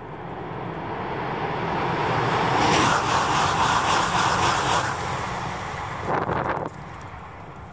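A Shinkansen bullet train passing at speed: a rushing noise that builds for about three seconds, stays at its loudest for a couple of seconds, then drops off suddenly near the end.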